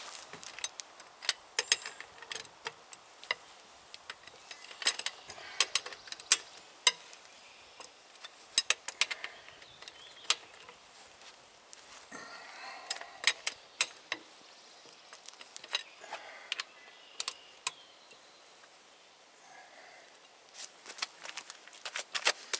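Wheel lug nuts being loosened with a long-handled socket wrench: sharp metallic clicks and clinks of the socket and handle on the nuts, coming in irregular clusters.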